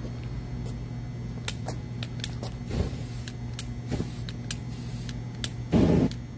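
An aerosol can sprayed in short hissing bursts onto burning sneakers, the loudest burst near the end as the flame flares up, with scattered light clicks and a steady low hum underneath.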